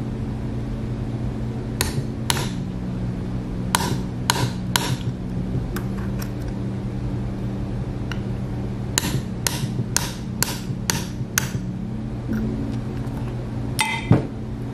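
Small hammer tapping a steel pin punch to drive the rear pin out of a Smith & Wesson M&P 2.0 pistol's polymer frame: about a dozen sharp taps in groups, roughly two a second, with one last tap near the end.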